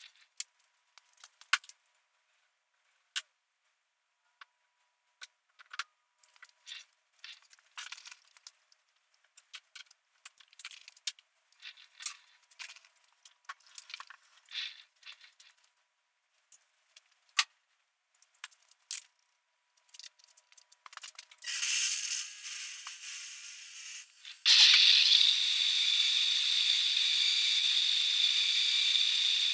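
Scattered light metal clinks and taps as a turbo housing is set up in a lathe's four-jaw chuck. About 21 seconds in a steady hiss begins, and a few seconds later the lathe runs loudly and steadily with a high whine and hiss, the chuck spinning with a boring bar in the housing's bore.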